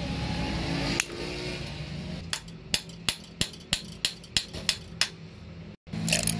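Small metal clicks from parts of a Stanadyne rotary diesel injection pump being worked by hand on the bench. There is one sharp click, then a run of about nine evenly spaced clicks, roughly three a second, over a steady low hum.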